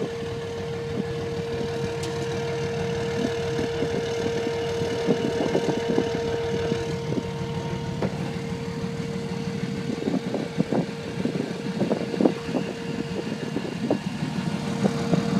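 Hydraulic dump bed lowering as the release valve is held open, with a steady whine, over a vehicle engine idling. A higher tone drops out about halfway, and a series of clicks and knocks comes late as the bed comes down.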